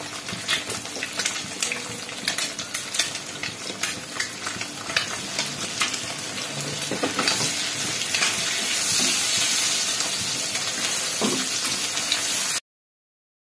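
An egg frying in butter and oil in an aluminium wok: steady sizzling with frequent pops and spatters, getting louder about eight seconds in as a wooden spatula stirs it. The sound cuts off suddenly near the end.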